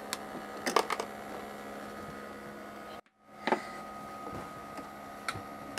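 Steady electric hum with a couple of fixed tones, typical of a tabletop air hockey table's small blower fan running. Sharp plastic clacks of mallets and a toy car knocking on the table break in: a quick cluster near the start, then single knocks later.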